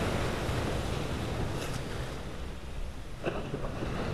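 Surf washing on a beach, with wind buffeting the microphone in an uneven low rumble.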